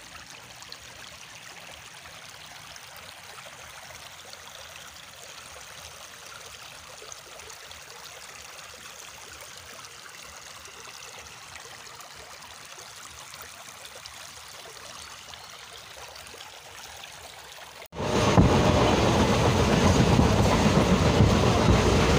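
A quiet, steady rush of flowing river water. About eighteen seconds in, an abrupt cut brings the much louder running noise of a moving train, heard from on board.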